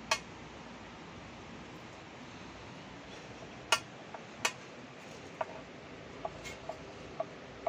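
Knife clicking against a cutting board as green chillies and ginger are chopped by hand: a few sharp taps, one right at the start and two about four seconds in, with fainter ticks scattered after, over a steady background hiss.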